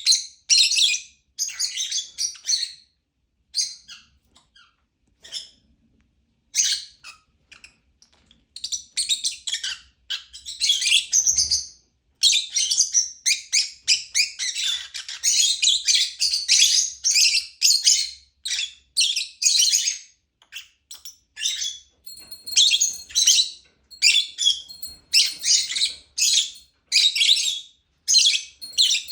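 Lovebird chirping in rapid, high-pitched bursts. It is sparser for the first several seconds, then chirps almost without pause through the second half.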